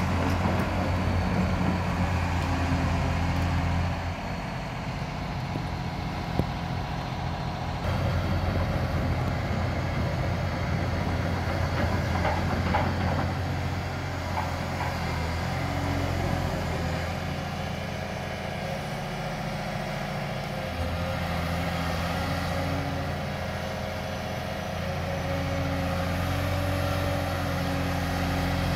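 Liebherr 946 crawler excavator's diesel engine running, its note stepping up and down several times as the machine works and slews. A single sharp knock about six seconds in.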